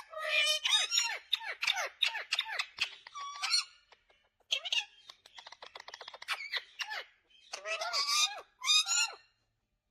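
An animal making a run of short, squeaky calls that bend up and down in pitch, with two brief pauses.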